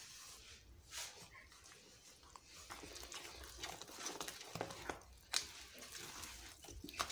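Silicone spatula stirring a thick flour, egg and milk batter in a bowl: faint wet squelching, with a few short scrapes and taps against the bowl.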